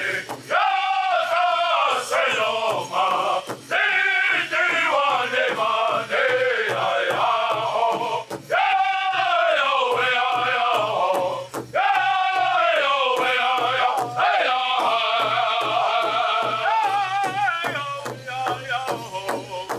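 Powwow drum group: men chanting in unison over a steady, even beat on a large drum.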